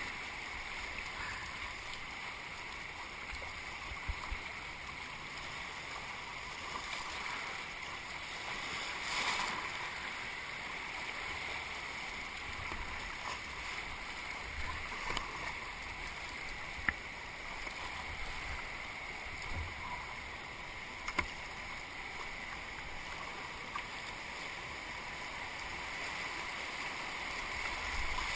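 High, fast floodwater of a river running steadily through rapids around a whitewater kayak, with a few short sharp clicks scattered through, the loudest about two-thirds of the way in.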